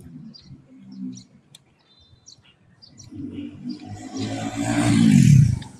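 A man's long, low groan of effort as he forces tyre levers to pry a moped's rear tyre bead over the rim. It swells over a couple of seconds, drops in pitch and breaks off suddenly near the end. Faint bird chirps come before it.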